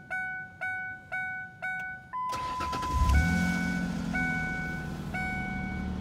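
A Ford Explorer Sport Trac's 4.0-litre V6 is started. The starter cranks about two seconds in, the engine catches about a second later and settles into a steady idle. Throughout, a dashboard warning chime dings, about twice a second before the start and about once a second after it.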